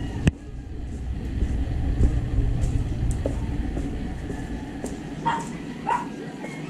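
Street ambience in a narrow alley: a low rumble through the first half and a sharp click right at the start, then a dog barking twice near the end.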